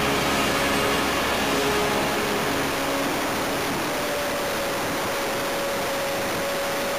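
Steady rush of air over an onboard camera on an electric SIG Hummer RC plane in flight, with a faint motor whine that shifts in pitch over the first few seconds and holds one steady pitch from about four seconds in.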